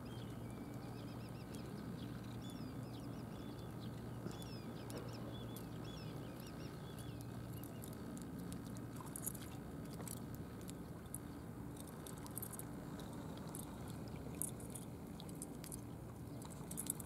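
Faint waterside ambience: a steady low hum, with small birds twittering during the first several seconds and light, crisp ticking in the second half.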